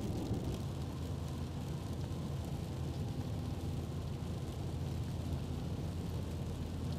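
Steady road noise inside a moving car: a constant low rumble of engine and tyres.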